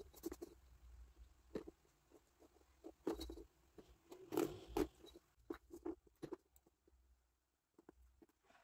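Faint handling noises: a steel ruler shifting and tapping on a thin wooden sheet and a ballpoint pen scratching marking lines, with a few louder knocks near the middle.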